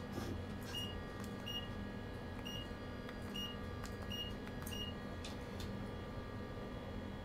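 About six short, high electronic beeps at uneven intervals, each with a soft click, over a steady low hum inside a train cab. The beeps stop about five seconds in.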